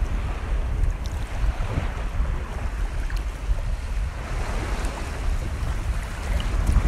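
Steady wind noise on the microphone over the wash of small sea waves.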